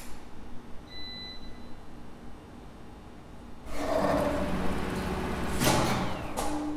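Two-speed elevator hoist machine: low background at first, then from about four seconds in the winch machinery runs loudly, with a sharp clack near six seconds and a steady hum setting in near the end.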